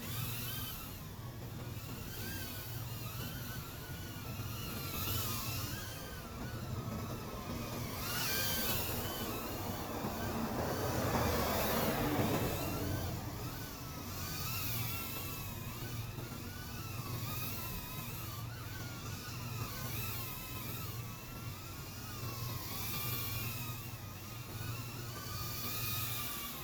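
FPV drone's motors whining, their pitch constantly wavering up and down with the throttle over a steady low hum, with a swell of rushing noise about halfway through.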